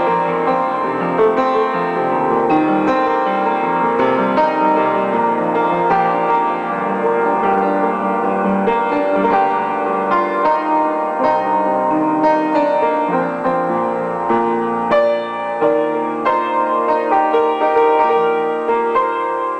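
Upright piano played solo, improvised on the spot: a continuous stream of notes without a break.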